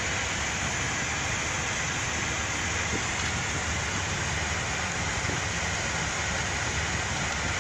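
Steady hiss and low rumble of continuous background noise, even in level throughout, with a faint click about three seconds in.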